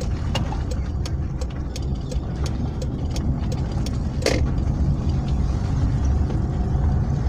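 Car driving slowly, with a steady low engine and road rumble heard from inside the cabin. A light ticking repeats about three times a second, and there is one brief, sharper sound about four seconds in.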